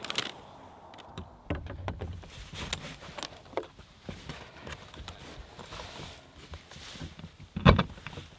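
Irregular knocks, clicks and clunks of things being handled, with one louder thump near the end.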